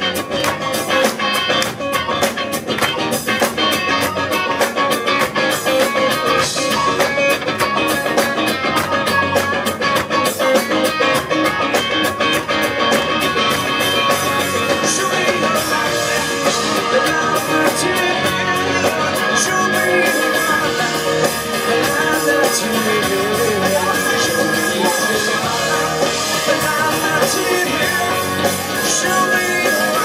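Live rock band playing: electric and acoustic guitars over a drum kit, with a male lead vocal, recorded from the audience.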